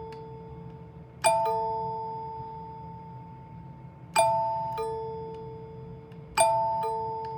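NuTone L-31 Pacesetter door chime sounding its front-door call three times. Each time the clappers strike a two-note chord on the tone bars, and moments later the rebound strikes one lower note. Each note rings on and slowly fades.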